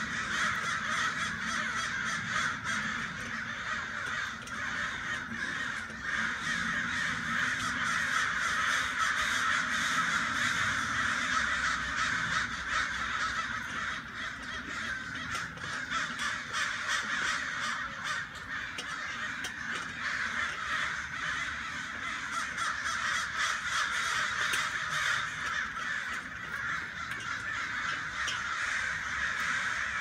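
A large flock of crows cawing all at once, many overlapping calls merging into a continuous din that never breaks.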